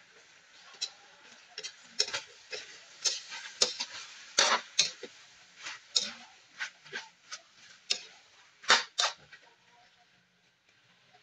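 Metal spatula clacking and scraping against a metal pot as raw chicken pieces are stirred, in irregular strokes that stop near the end. The loudest clacks fall near the ninth second.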